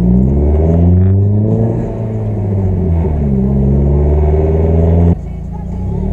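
Volkswagen hatchback's engine, heard from inside the cabin, accelerating through the gears: its note rises, drops at each shift and climbs again. About five seconds in, the throttle is lifted and the engine suddenly goes quieter.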